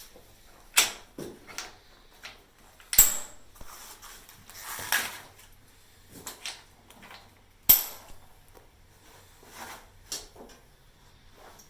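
Unpacking noises: irregular sharp knocks and clacks as scooter parts and packaging are handled, with a stretch of rustling about five seconds in; the loudest knocks come about three seconds in and near eight seconds.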